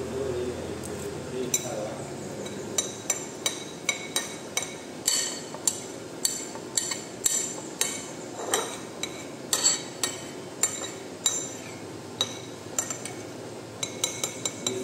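Metal cutlery clinking against a dish while someone eats: a string of sharp, ringing clinks about once a second, coming closer together near the end.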